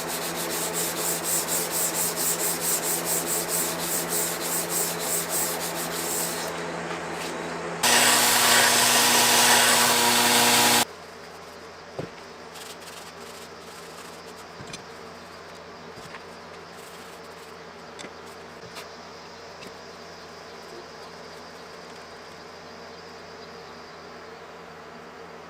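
Sanding in quick, even strokes over a steady hum. About eight seconds in a louder, harsher sound runs for some three seconds and cuts off suddenly. After that it is quieter, with a few light clicks.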